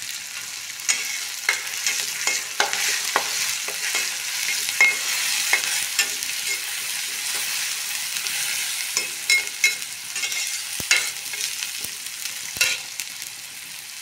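Onion-tomato masala sizzling in mustard oil in an iron kadhai while a metal spatula stirs it, scraping and clinking against the pan many times, with two sharper knocks near the end.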